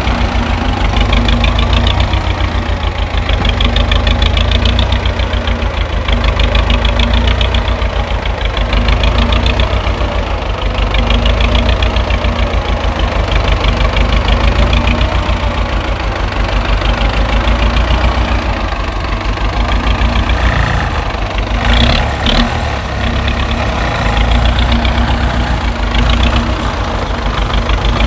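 Tractor engine idling with a fast, even knock, swelling and easing about every two and a half seconds. A short clatter cuts in about three quarters of the way through.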